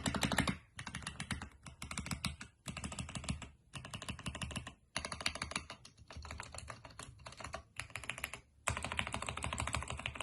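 Fast typing on a mechanical keyboard with tactile switches, the keystrokes clacking in quick runs broken by brief pauses. The switches sound click-like, which the owner takes as tactiles sounding like clicky switches.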